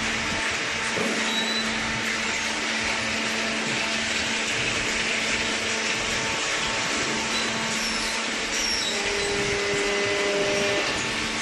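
Hydraulic baler's electric motor and pump running with a steady whir and hum, a few faint whining tones coming and going.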